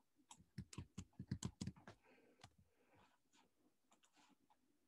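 Quick run of about a dozen sharp clicks at a computer keyboard and mouse in the first two and a half seconds, then a few fainter scattered clicks.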